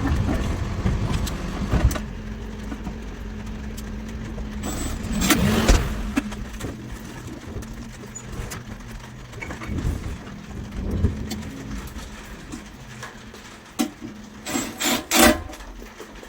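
A refuse collection lorry's engine runs steadily nearby, swelling louder about five seconds in. Near the end come a few sharp metallic clicks and clanks.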